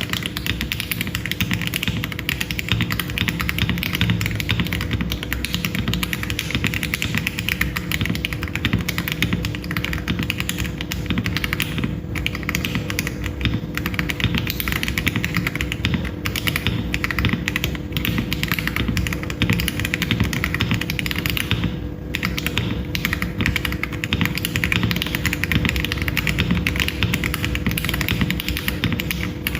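Continuous fast typing on a mechanical keyboard fitted with franken switches built from Akko Jelly Blue and Jelly White parts: a dense run of clacky keystrokes with short breaks about 12 and 22 seconds in.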